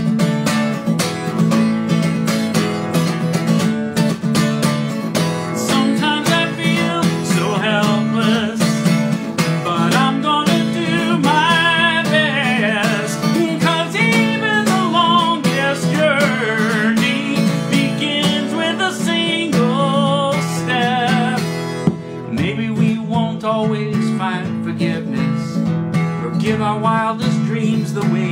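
Strummed acoustic guitar with a man singing over it, holding long, wavering notes through the middle and again near the end.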